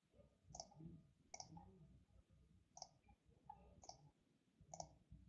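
About half a dozen faint, irregularly spaced clicks from computer keys or a mouse, over near silence.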